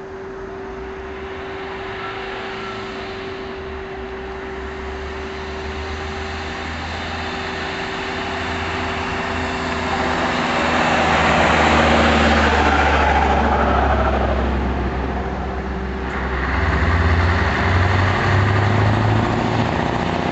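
Scania 164 truck's 16-litre V8 diesel running, a deep steady drone that grows louder to a peak about twelve seconds in. It eases off a few seconds later, then picks up again near the end.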